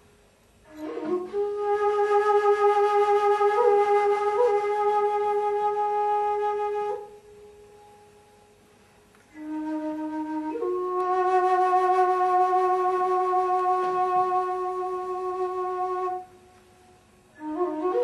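A wind instrument playing long held notes with a slight vibrato, each lasting several seconds, separated by short pauses; the second note starts low and steps up to a higher pitch.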